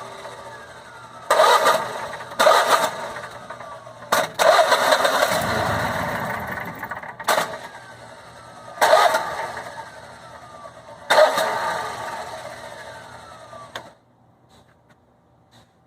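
Generac Guardian Quiet 05244 standby generator engine repeatedly surging into life and dying away, about six times, each surge fading with a falling whine, one running a few seconds longer, then it stops abruptly near the end. An engine tech thought the oil was maybe slightly low, so the low oil pressure switch kept tripping on and off.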